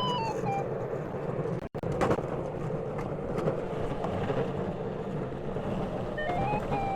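Electric go-kart driving: steady road and wind noise with a thin motor whine that steps down in pitch at the start and comes back, wavering, near the end. The sound drops out for an instant about 1.7 seconds in.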